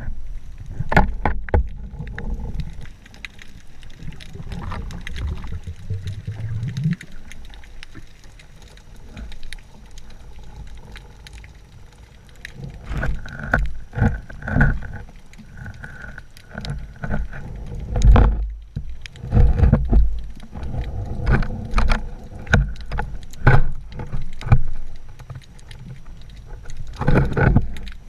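Muffled water sloshing and irregular low thumps and knocks, picked up through a GoPro's waterproof housing while diving.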